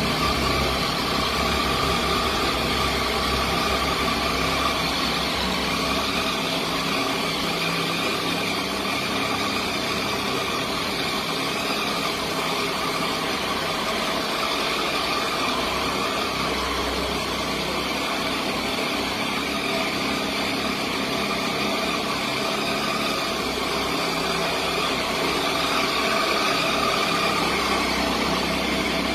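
Triumph Tiger 800 XCA's three-cylinder engine idling steadily through an Arrow aftermarket exhaust.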